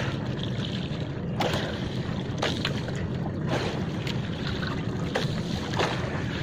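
Steady wind on the microphone and water washing against a small boat at sea, with a few short, sharp clicks or splashes spaced irregularly about a second apart.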